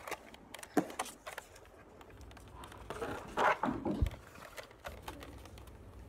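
Handling noise from a toy foam-dart blaster and the phone filming: a few sharp clicks in the first second and a half, then rustling and a dull thump about four seconds in.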